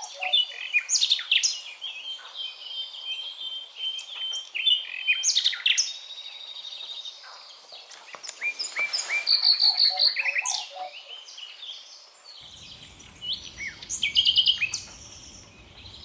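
Songbirds chirping and singing, with several high, fast jingling trills, among them the song of a European serin.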